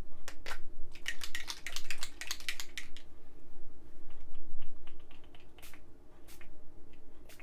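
Small pump-mist spray bottle of Distress Oxide Spray squirted onto paper in a quick run of short sprays. A few sparser, fainter sprays follow.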